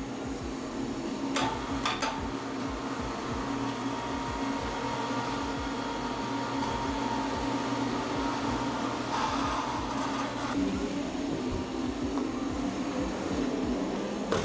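Steady machine hum of shop equipment with a low drone, broken by two sharp metal clanks about a second and a half and two seconds in as the steel wheel rack is handled in the chemical strip tank.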